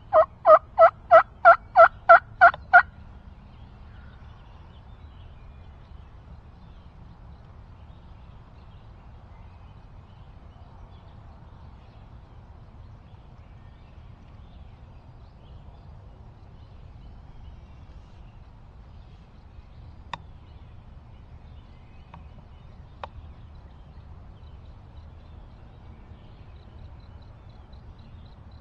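A loud series of about ten turkey yelps, evenly spaced at about three a second, stopping about three seconds in. Then faint steady background with two faint ticks later on.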